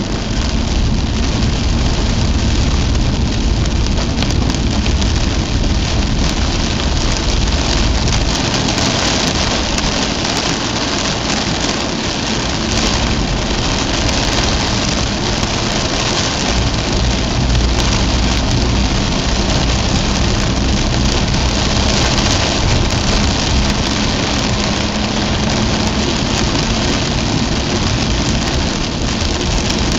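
Heavy rain pelting the windshield and roof of a Mazda RX-8, heard from inside the cabin as a dense, steady hiss over the low hum of the car's rotary engine and tyres on the wet road.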